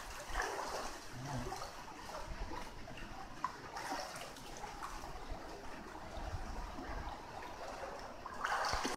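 Floodwater sloshing and swirling around the legs of people wading thigh-deep through it, a steady, fairly quiet watery wash.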